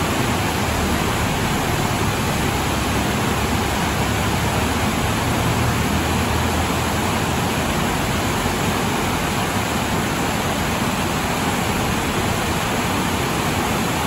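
Steady rush of whitewater cascading over boulders at a river falls.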